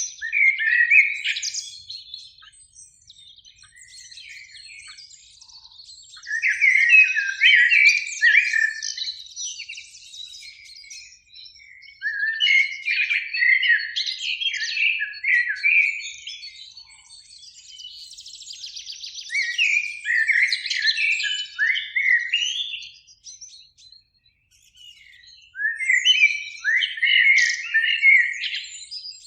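Common blackbird singing: about five fluty, warbled phrases a few seconds apart, each trailing into higher twittering notes.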